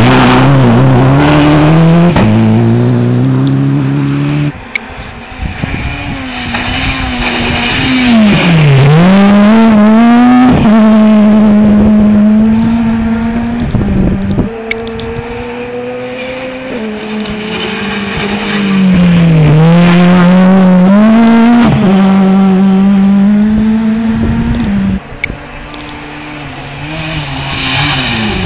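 Rally cars driven flat out past on a forest stage. The engines rev high, drop sharply in pitch at each gear change or lift of the throttle, then climb again, rising and falling in loudness as each car approaches and goes by.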